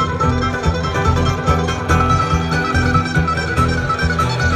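Live bluegrass string band playing an instrumental passage with no singing: fiddle and acoustic guitar among the strings, with a quick melody line running over a steady low accompaniment.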